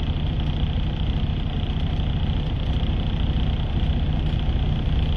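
Semi-truck's diesel running with a steady low rumble, heard from inside the cab.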